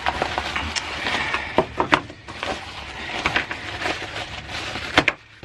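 A small cardboard package opened by hand: rustling and scraping of the box and its packing, with scattered clicks and taps and a sharp tap about five seconds in.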